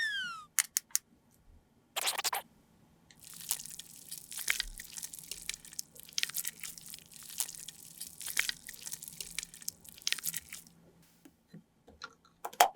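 Crisp crunching and scratching from toy play food being handled: a short burst about two seconds in, then a dense run of small crunches lasting about seven seconds, with a few sharp ticks near the end.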